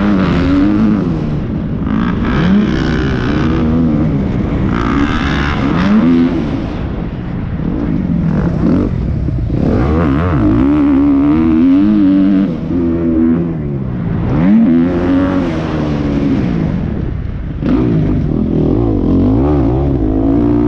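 Motocross dirt bike engine under hard throttle, revving up and falling back again and again, every second or two.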